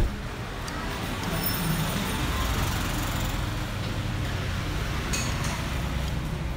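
Road traffic going by: a steady rumble and hiss of passing vehicles that swells over the first couple of seconds and then holds.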